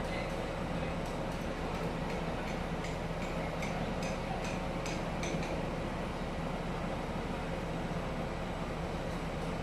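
Steady low machinery hum, with a run of about six light metallic clinks, roughly two a second, a few seconds in.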